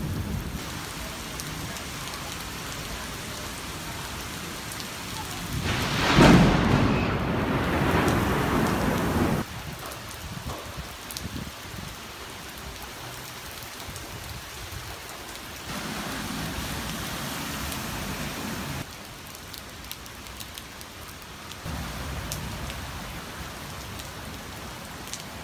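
Heavy rain falling steadily, with a loud rumble of thunder that swells about six seconds in and cuts off abruptly a few seconds later. The rain's level changes suddenly several times.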